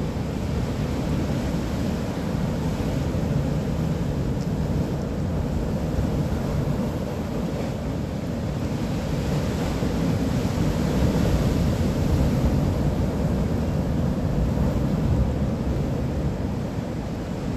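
Steady low rumble of wind buffeting the microphone, over the noise of surf on the shore.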